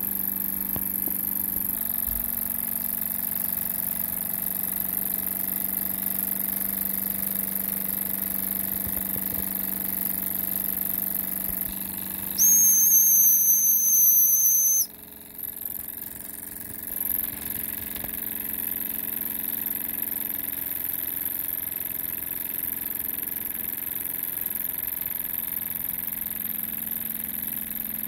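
Jensen toy live-steam engine running steadily, with its boiler's steam whistle blown once, a loud high-pitched tone lasting about two and a half seconds about halfway through.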